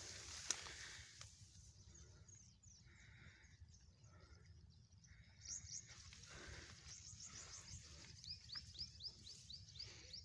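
Faint, quiet rustling with one sharp click about half a second in. From about seven seconds a small bird gives a rapid string of short high chirps, several a second.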